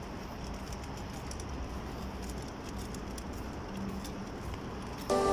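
Small wheels of a pulled shopping trolley rattling and clicking over paving stones, over a low steady rumble of street noise. Music cuts in right at the end.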